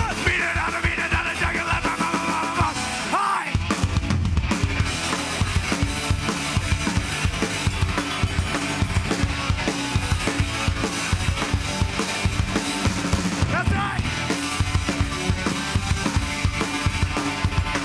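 Punk band playing live: electric guitars, bass and a fast drum beat. A singer's yelled vocal runs over the first few seconds, then the band plays on without vocals.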